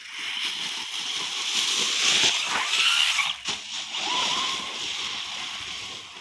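ZD Racing ZMT-10 RC monster truck driving over grass and dry leaves: a rustling, hissing tyre noise, with short rising whines from its electric motor, the clearest about four seconds in.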